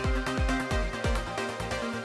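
Electronic music with a steady, deep beat, about two to three thumps a second, over held synth notes.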